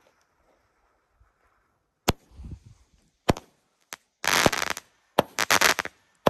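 Consumer firework cake shooting after its opening fountain has burnt out: a couple of sharp bangs about two and three seconds in, then dense crackling breaks in the air.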